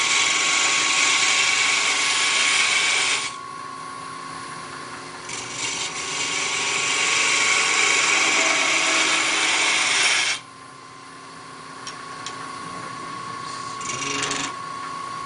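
Wood lathe running with a steady motor whine while a tool bears on the spinning wood in two long loud passes, each a hiss of several seconds, with a couple of short touches near the end.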